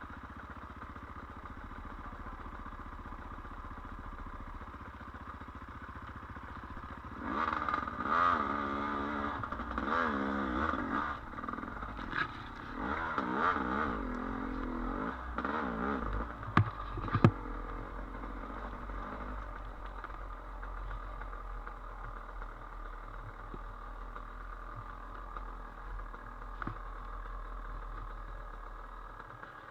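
Trail dirt bike engine running low and steady, then revving up and down repeatedly from about seven seconds in until a little before the middle of the clip's second half, with two sharp knocks partway through, before settling back to a steady low run.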